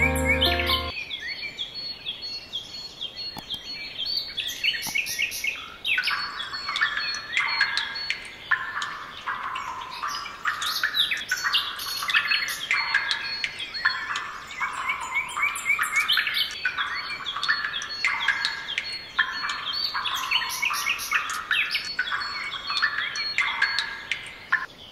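Birds chirping and singing in quick, repeated short phrases, with music stopping about a second in.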